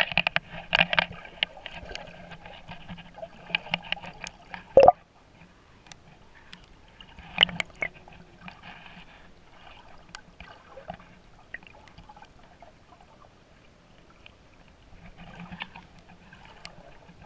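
Water moving and bubbling around a camera held underwater, with scattered sharp clicks and a loud knock about five seconds in. The activity is busier at first, then mostly quieter.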